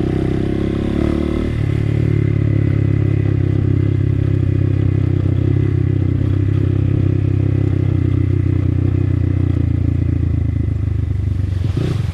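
Motorcycle engine running steadily under way, its pitch shifting about a second and a half in and then holding even.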